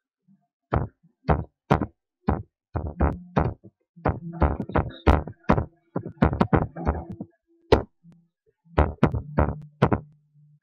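Computer keyboard being typed on: quick, irregular runs of sharp key clicks with short pauses between words, over a faint low hum.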